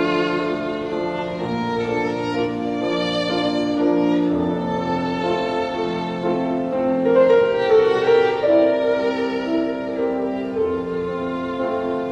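Background music led by a violin, with long held notes that change pitch every second or so.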